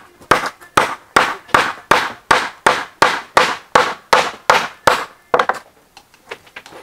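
Small axe chopping through a large barracuda's backbone on a wooden table: about fourteen quick, even strokes, nearly three a second, stopping about five seconds in, followed by a few lighter taps.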